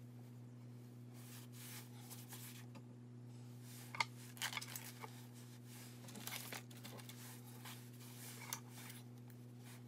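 Faint rustling and crinkling of craft materials being handled, with a cluster of sharper crinkles about four seconds in and again around six seconds, over a steady low hum.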